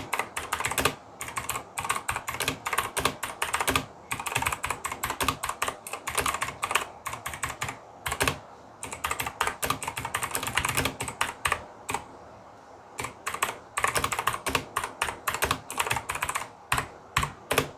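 Fast typing on an EvoFox Katana full-size mechanical keyboard with Outemu Blue clicky switches: a rapid, uneven stream of sharp clicks, with a couple of short pauses, the longest about two-thirds of the way through. Very clicky.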